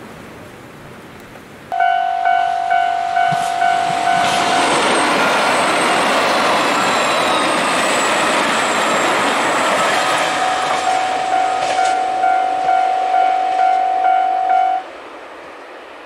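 A Japanese railway level crossing's electronic warning bell starts suddenly, ringing a single-pitched ding about two to three times a second. A limited express diesel train passes with a loud rush of wheel and rail noise that covers the bell in the middle. The bell comes through plainly again and cuts off about a second before the end.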